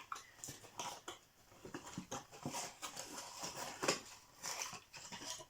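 Cardboard and paper wrapping rustling and scraping with a few light clicks as a small advent calendar door is pulled open and the box inside unwrapped.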